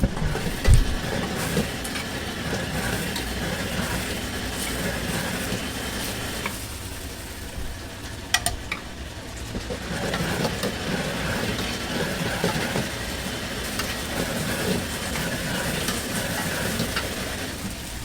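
Food sizzling as it is fried and stirred in a hot pan, a steady hiss with scattered sharp clicks of a metal utensil, and a low thump just under a second in.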